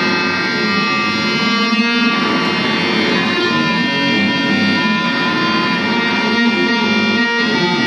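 Electric guitar through effects pedals, playing a dense layer of held, overlapping tones in an experimental piece. One pitch glides slowly around the middle.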